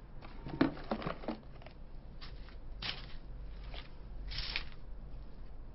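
Handling noise from searching through things by hand: a few short scratchy rustles and swishes over a low steady hum.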